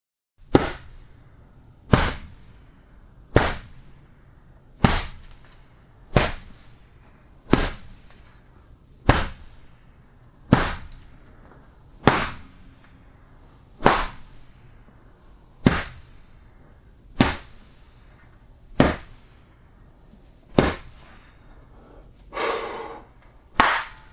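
A series of body-hit sound effects: about sixteen separate punch-like impacts, one roughly every one and a half seconds, each a sharp hit with a short decaying tail. One hit near the end is softer and drawn out.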